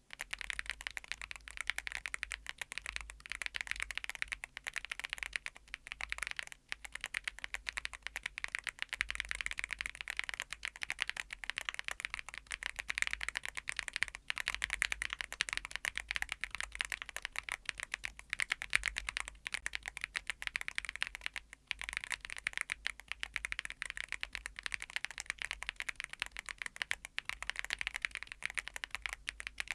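Continuous fast typing on a full-aluminium YUNZII AL98 mechanical keyboard with MILK V2 switches: a dense stream of keystroke clacks, broken by a few brief pauses.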